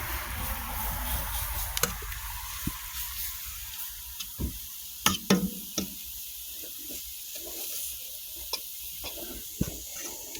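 Flour browning in grease in a frying pan, sizzling as it is stirred, with the clicks and scrapes of the spoon against the pan. The sizzle drops away about four seconds in, leaving scattered clicks and knocks.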